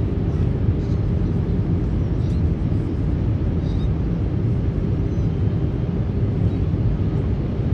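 Steady low rumble of engines and rushing air inside the cabin of an Airbus A319 on final approach.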